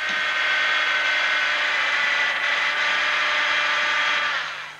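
Bench drill press motor running steadily while its bit bores into an onion, then dying away near the end.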